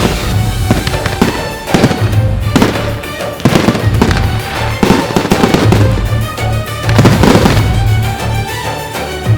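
Aerial fireworks bursting in a rapid, irregular string of bangs and crackles, with music playing throughout under a steady bass.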